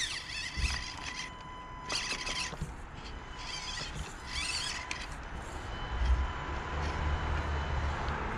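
Axial SCX24 Deadbolt micro RC crawler's small electric motor and gears whining in short bursts as it is throttled over rocks, with a low rumble over the last couple of seconds.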